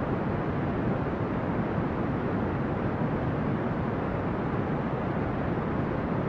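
Brown noise: a steady, unchanging rushing hiss weighted toward the low end, with no distinct events.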